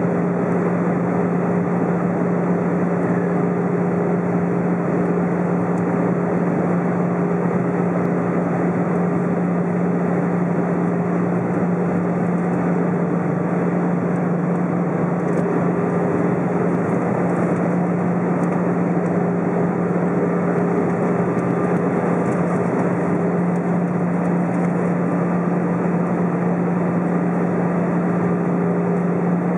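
Airbus A320 cabin noise at a window seat over the wing: steady jet engine drone with a low hum and airflow hiss, the aircraft descending on its arrival.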